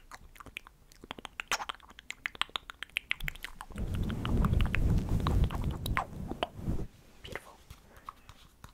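Fingernails tapping and clicking rapidly on a plastic sunscreen stick close to the microphone, then a low rubbing rumble from about four seconds in for roughly three seconds, with scattered taps near the end.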